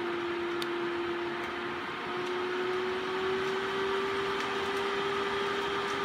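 AC Infinity Cloudline S8 inline duct fan running at a high speed setting: a steady rush of air with a steady motor hum. About two seconds in, the hum steps up slightly in pitch and gets a little louder as the fan is stepped up toward speed seven.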